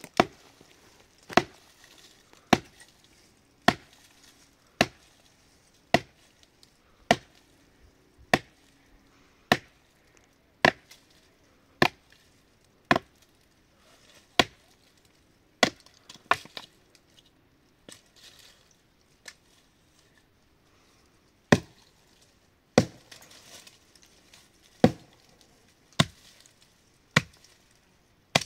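Wood being chopped: sharp, even blows about one a second, with a few seconds of only light knocks a little past the middle before the blows resume.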